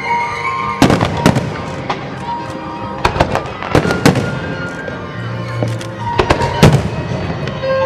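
Fireworks shells bursting in a string of sharp bangs, some in quick clusters of two or three, over music playing throughout.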